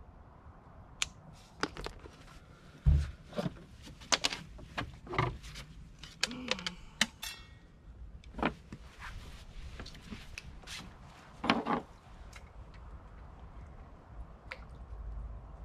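Handling noises on a small boat: scattered clicks and knocks of fishing gear and footing on the deck, with a heavy thump about three seconds in.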